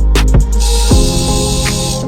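Background music with drum hits and a bass line.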